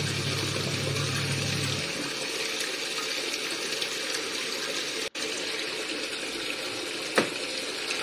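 Semi-automatic top-loading washing machine washing clothes in water, with a steady sound of water splashing and pouring into the tub. The wash motor hums for about the first two seconds and then stops, the pause of the gentle wash setting's stop-start rotation. A single click comes near the end.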